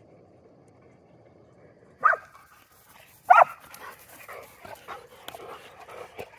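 A dog barks twice, sharply, about a second apart, then rapid panting at about three breaths a second.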